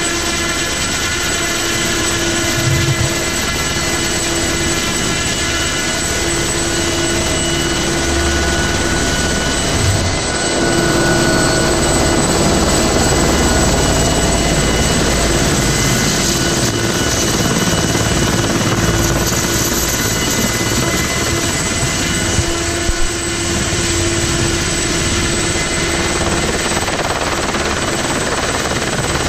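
Ultrasport 496 light helicopter hovering low overhead: its engine and main rotor make a loud, steady drone that holds an even pitch throughout.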